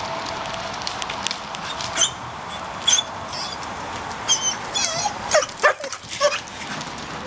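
A dog barking and whining: a string of short yips and high whines over a steady background hiss, coming thicker in the second half.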